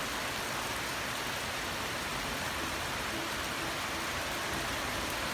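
Steady rain falling on pavement and surfaces, an even hiss with no breaks.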